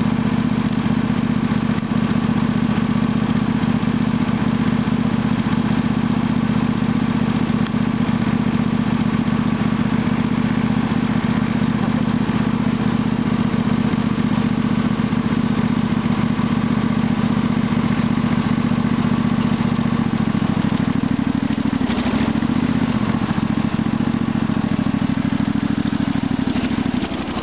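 A small engine idling steadily close by at an unchanging pitch. Near the end a second engine note comes in, wavering up and down, as a 1969 Honda Z50 mini bike's single-cylinder four-stroke rides up and past.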